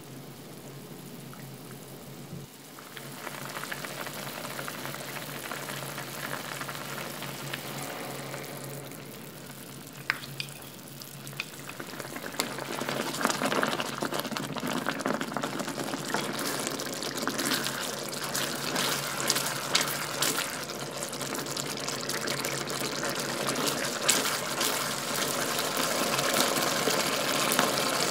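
Minced pork sauce simmering and sizzling in a stainless-steel frying pan, a steady bubbling crackle. It grows louder and denser about twelve seconds in, after a cornstarch slurry is poured into the pan.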